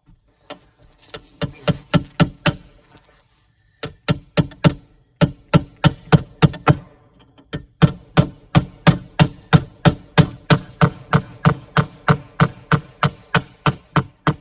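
Hammer driving roofing nails by hand: runs of sharp, ringing strikes about three a second, with short pauses between nails.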